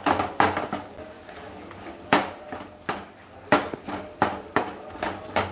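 Steel ladle knocking and scraping against a stainless steel pan while boiled sweet potato is mashed and stirred into ghee and gram flour: about ten sharp clinks at uneven intervals.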